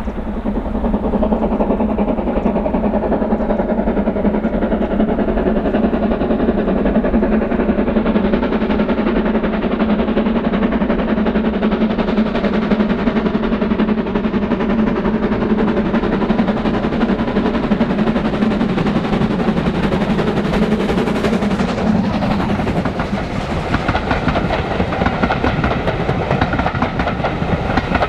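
BR Standard Class 4 tank steam locomotive working hard with a passenger train, its exhaust running as a dense continuous chuff as it approaches. Near the end the coaches roll by, wheels clicking over the rail joints.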